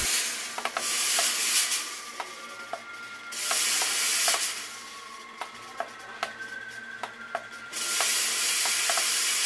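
Three bursts of loud hissing spray, each one to two seconds long, as smoke is jetted in. Small sharp clicks and pops fall between the bursts.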